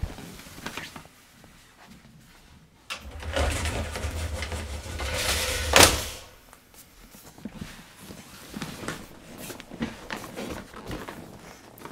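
A pull-up green screen being lowered into its floor case: a low rumbling slide lasting about three seconds, ending in a sharp clack as it shuts. Faint knocks and rustling follow.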